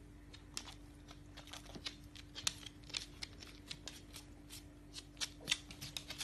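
Bull terrier puppy's claws clicking on a hard floor as it walks, in quick irregular taps over a faint steady hum.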